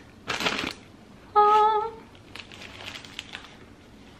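Brown paper takeout bag crinkling around a pita sandwich as it is bitten into, with a short hummed vocal sound about a second and a half in, the loudest moment, then faint crackles of paper and chewing.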